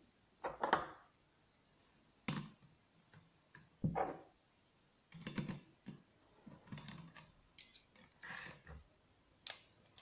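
Scattered clicks and light knocks of a metal saw blade and its clamping screw being handled and fitted onto the spindle of a Bosch PMF 220 CE oscillating multi-tool, which is switched off.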